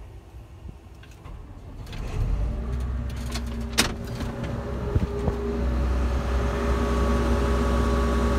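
Combine harvester's diesel engine starting up about two seconds in and running, getting louder as it comes up to speed on a cold start to warm up. A sharp click is heard near four seconds in.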